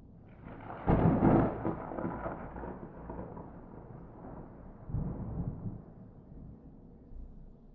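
A thunderclap with no rain: a sharp crack about a second in, then a long rolling rumble that swells again about five seconds in and dies away.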